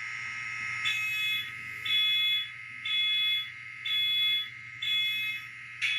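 An N scale SD70AH model's LokSound sound decoder running its prime mover start-up sequence through the model's small speaker: a steady high whine with an alarm-like beep pulsing about once a second, then a sudden loud hiss right at the end.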